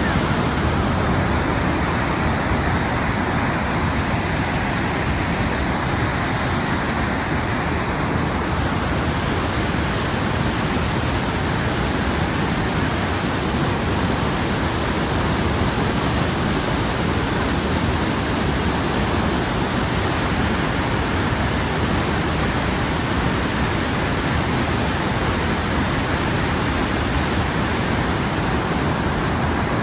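Steady, even rush of water from Blackwater Falls, a large waterfall.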